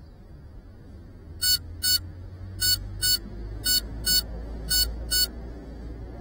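An FPV drone's beeper sounding in pairs of short, high-pitched beeps, four pairs about a second apart, as the drone lies still on the ground: the lost-model alarm of a downed or landed quad. A low steady rumble runs underneath.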